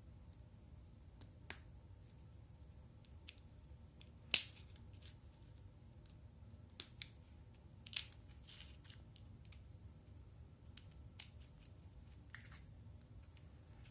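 Geomag magnetic construction pieces clicking and snapping together, a scattering of single sharp clicks with the loudest about four seconds in.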